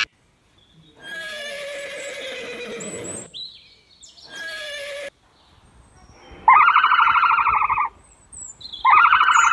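A horse whinnying twice, each call a couple of seconds long, then two louder buzzing calls of about a second each.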